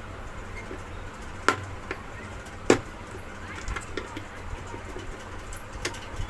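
Sharp metallic knocks and clicks of screws and a screwdriver being handled on an opened mixer grinder motor. There are two loud knocks, about a second and a half and under three seconds in, then lighter scattered clicks.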